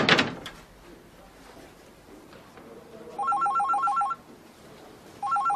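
A door slams shut at the very start, the loudest sound here. Then a desk telephone rings twice with a rapid electronic warbling trill, each ring about a second long.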